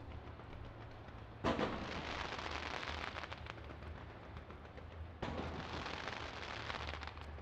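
Aerial fireworks bursting overhead. A sharp bang about a second and a half in is followed by a few seconds of dense crackling, and a second bang about five seconds in sets off another run of crackling.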